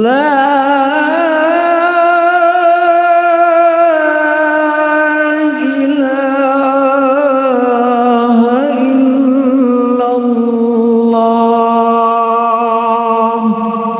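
A muezzin chanting the closing phrase of the adhan (Islamic call to prayer): one long, drawn-out melodic line with vibrato in a single male voice, shifting pitch a few times before fading near the end.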